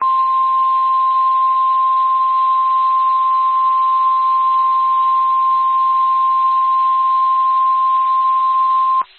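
Emergency alert tone, the NOAA Weather Radio warning alarm: a single loud, steady electronic tone held for about nine seconds over a faint hiss, then cutting off abruptly. It signals that a warning broadcast, here a tornado warning, follows.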